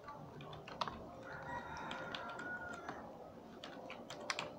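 A few scattered computer keyboard key presses, quick clicks that cluster near the end. Behind them, from about a second in, there is a faint long tonal call lasting nearly two seconds.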